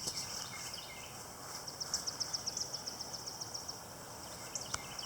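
Outdoor background noise with a bird's rapid high trill, about ten chirps a second for roughly two seconds, starting a second and a half in; a faint click near the end.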